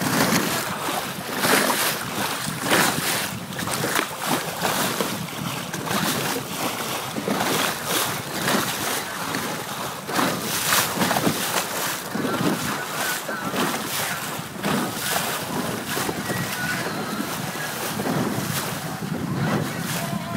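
Wind buffeting the microphone in uneven gusts over the rush of choppy water along the hull of a small 20.5-foot sailboat under sail.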